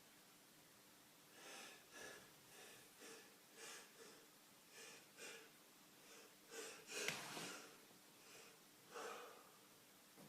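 A man sniffing and snorting through an itching nose during a sneezing fit: a string of short breathy sniffs, a little under two a second, starting about a second and a half in, with the strongest snort about seven seconds in.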